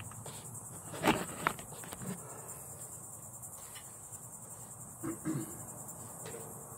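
A steady high-pitched insect-like buzz, with two sharp clicks a little after a second in and a few faint knocks around five seconds.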